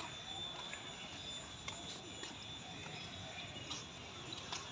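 Faint outdoor background: distant murmur of voices with a few light clicks and a thin steady high tone.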